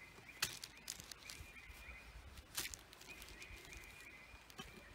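Stamped cross-stitch canvas and paper being handled, with a couple of soft rustling taps. Behind it, two stretches of faint, high, quickly repeated chirping.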